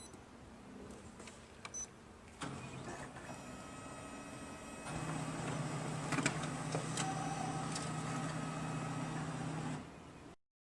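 Kyocera laser printer running: its motors and gear train start about two seconds in, run louder and steady from about five seconds in with a few sharp clicks, then stop near the end. A few small clicks come before it starts.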